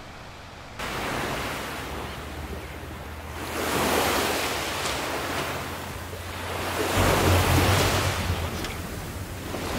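Ocean surf: waves washing in, starting abruptly about a second in and then swelling and easing in about three surges, the last with a deep rumble.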